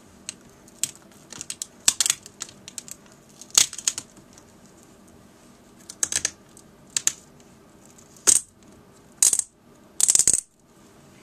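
Sharp clicks and crackles of a laptop LCD panel being peeled back off its adhesive strip and handled. There are a few longer rasps in the last few seconds.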